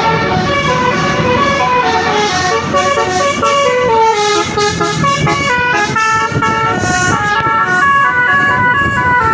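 Bus 'basuri' telolet horn playing a melody: a loud multi-trumpet air horn stepping through note after note, several notes a second, without a break.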